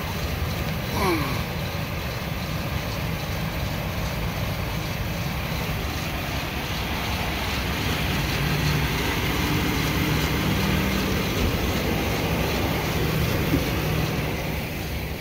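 1997 GMC Sierra pickup engine idling steadily, circulating freshly added radiator flush through the cooling system. A brief falling squeak about a second in.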